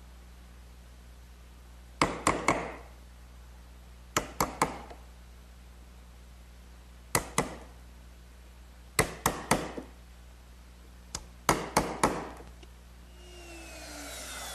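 A mallet striking a chisel that chops out a mortise in ash: sharp knocks in quick groups of about three, every two to three seconds. Near the end a router starts running.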